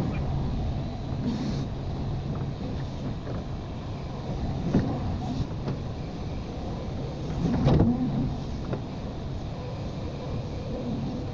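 Cat 320 hydraulic excavator's diesel engine running steadily under hydraulic load as its bucket works the slope face. A couple of short knocks from the bucket against the ground stand out, one a little under halfway and a louder one about two-thirds of the way through.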